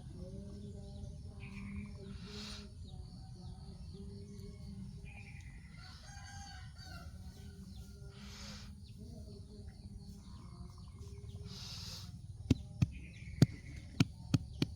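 Rooster crowing in the background over a steady low rumble, with a quick run of sharp knocks near the end.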